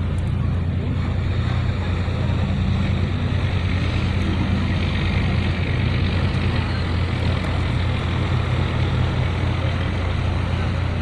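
An engine running steadily at constant speed, a low drone.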